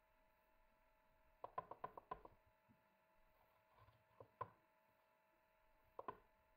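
Faint strokes of a metal box grater shredding cold butter, the grater knocking lightly on the mat. There is a quick run of about six knocks a second and a half in, then single knocks near the middle and the end, over a faint steady hum.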